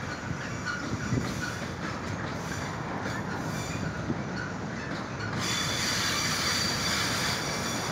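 Freight train of covered boxcars rolling around a curve: a steady rumble of steel wheels on rail with a few short knocks. A high-pitched squeal of wheels grinding on the curve rail joins about five seconds in and holds.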